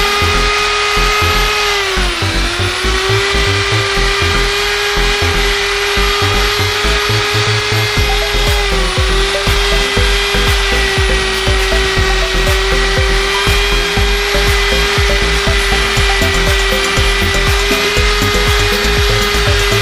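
A corded electric drill spinning a polishing pad against a motorcycle's aluminium engine casing. It gives a steady motor whine over the rubbing of the pad. The pitch sags briefly about two seconds in and again near nine seconds, as the drill bogs under the pressure of polishing.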